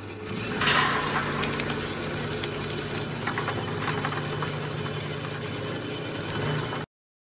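Stainless-steel electric vegetable slicer running with a steady motor hum while its spinning blade chops a long green vegetable into round slices, with a loud burst of cutting about a second in and scattered sharp ticks later. The sound cuts off suddenly near the end.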